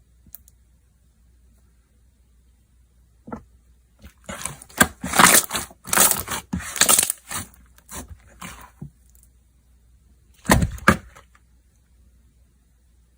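Slime being squished and pressed by hand, giving sharp crackling and popping noises. They come in a dense run of strokes from about four to nine seconds in and in one more short burst near eleven seconds.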